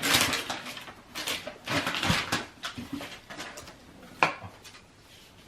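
Rustling and clattering of handled objects in a few short bursts, with a sharp click a little after four seconds.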